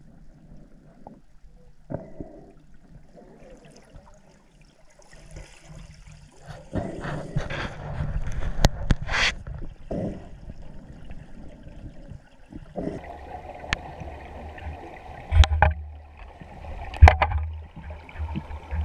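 Water gurgling and sloshing around an underwater camera, with a few sharp knocks. A low rumble sets in about two-thirds of the way through.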